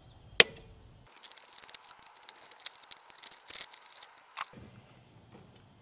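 Hand ratchet and socket clicking in fast small strokes while backing out the bolts of the TPS sensor housing on a VP44 injection pump. A sharp click just after the start and another about four and a half seconds in.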